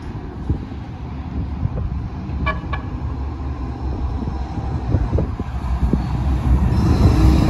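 Calgary Transit C-Train light-rail car approaching along a street-level platform over a steady low rumble, growing louder with a faint electric whine near the end. Two short horn toots sound about two and a half seconds in.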